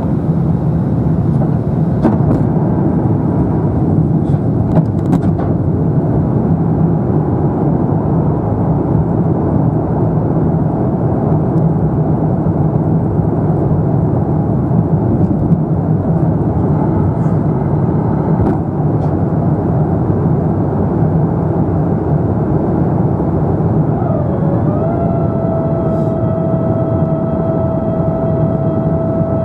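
Airbus A350-900 cabin noise in flight: a steady rush of engine and airflow noise, with a few faint clicks early on. About three-quarters of the way through, a steady whining tone joins in: it dips briefly, then holds level.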